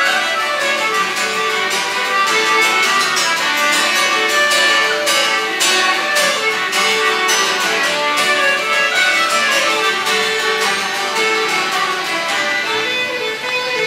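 Acoustic folk jam session playing a tune together: fiddles to the fore, with acoustic guitar, hammered dulcimer, accordion and whistle, and many quick struck and strummed notes.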